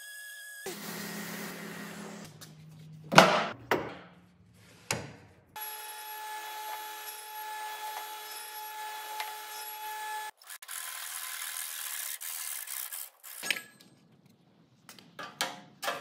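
Woodshop sounds cut together: a few sharp knocks of wood about three to five seconds in, then a sliding table saw running steadily as its blade cuts through a thick timber beam, then a hand pull saw sawing the beam.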